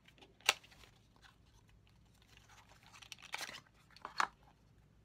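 A compact blusher and its packaging being handled: a sharp click about half a second in, a short rustle a little after three seconds, and two more clicks near the end.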